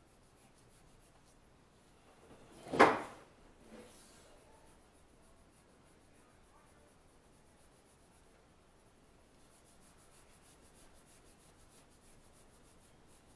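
Pencil scratching faintly on paper as a drawing is hatched and shaded, with one loud short thump about three seconds in and a softer knock a second later.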